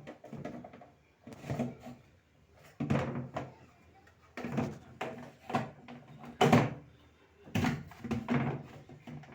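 A series of knocks and clunks, about seven, as glass fridge shelves are handled and slid back into the fridge's shelf runners.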